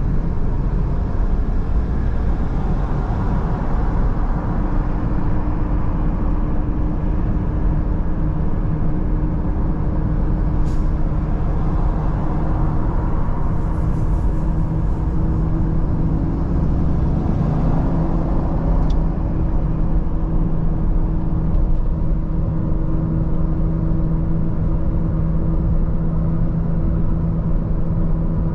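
A car driving at steady speed, a continuous rumble of tyre and road noise with a low, even engine drone.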